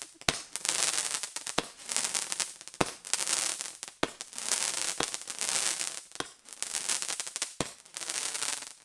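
A 'Hot Tamale' consumer firework firing: seven sharp pops, about one every second and a quarter, each followed by a crackling hiss of sparks.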